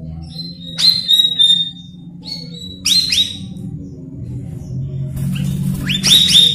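Cucak rawis (cucak bayeman) singing in three bursts of sharp whistled notes, each sweeping down and then holding a high clear pitch, over a low steady hum.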